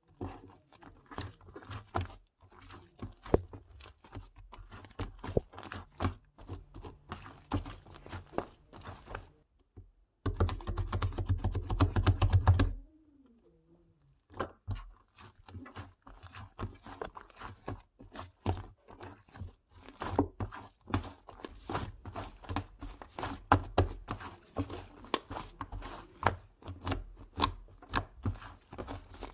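Slime being squished and worked by hand: a steady run of wet clicks and small pops, with a louder, denser stretch of clicking near the middle.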